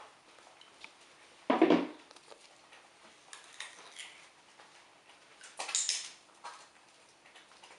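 Sharp clicks of a dog-training clicker and small handling noises, with one short, loud vocal sound about one and a half seconds in.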